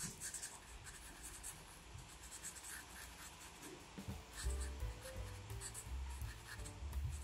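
Felt-tip marker scratching on paper in short back-and-forth strokes as outlined letters are coloured in. Soft background music comes in underneath about four seconds in.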